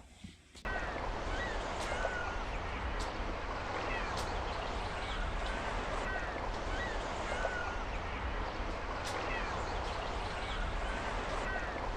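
Steady rush of background noise with a low rumble, starting abruptly just under a second in. Over it a bird gives short chirps every second or two, with a few faint sharp ticks.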